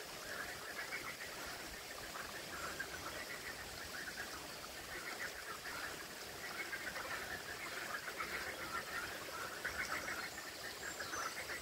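Frogs croaking from the lake in repeated bouts, each a quick run of pulses, coming every second or two over a faint outdoor hiss.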